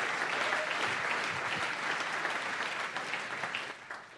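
An audience applauding, the clapping dying away near the end.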